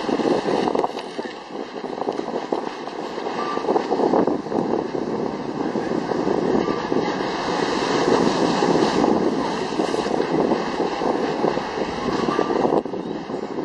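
Wind buffeting the microphone: a loud rushing noise that swells and dips, with no clear tone in it.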